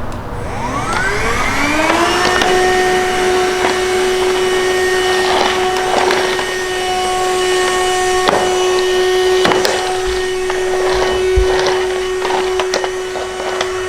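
Chigo handheld cordless vacuum cleaner switching on, its motor whine rising over about two seconds before settling into a steady high hum. Scattered clicks and crackles run through it as it sucks up hair, dust and grit.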